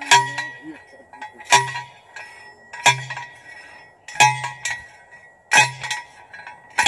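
Hand post driver pounding a steel tree stake into the ground: six sharp metallic clangs with a short ring, one about every 1.3 seconds.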